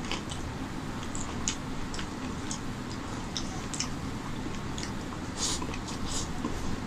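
Close-miked eating sounds: irregular wet smacks and clicks of chewing and of fingers mixing basmati rice with chicken curry on a steel plate, a little busier near the end.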